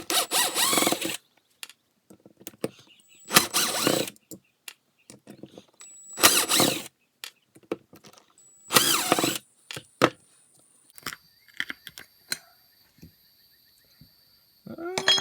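A cordless power driver run in four short bursts of about a second each, backing out the screws of a watercraft carburetor's diaphragm cover. Scattered small metal clicks follow, with a brief clink near the end.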